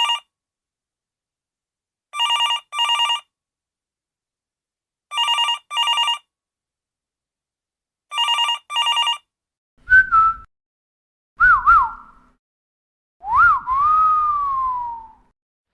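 Telephone ringing in double rings, ring-ring, about every three seconds, four times. Then a person whistling: a short whistle, a quick two-note whistle, and a wolf whistle that rises and then falls away in a long glide.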